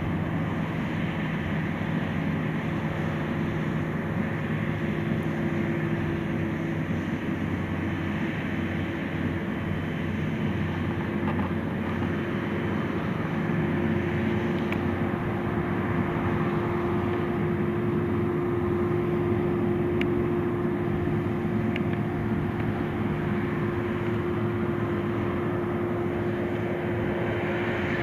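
Diesel engines of harvesting machinery running steadily, a continuous hum whose pitch steps up slightly about halfway through.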